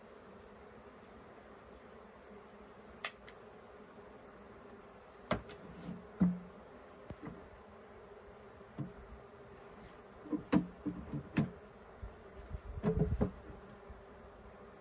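Honeybees buzzing in a steady hum around an opened hive, with a series of sharp wooden knocks and clunks as hive boxes and frames are handled, most of them in the second half.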